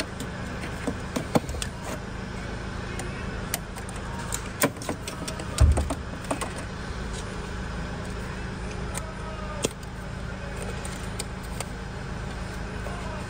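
Scattered metallic clinks and knocks of hand tools and parts being worked in a car's engine bay, over a steady low hum, with one louder thud about five and a half seconds in.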